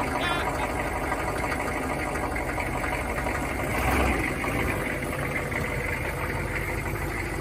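Chevy 6.5-litre turbo-diesel V8 idling steadily, running again now that its fuel delivery is fixed with a new lift pump and fuses; it swells briefly about four seconds in.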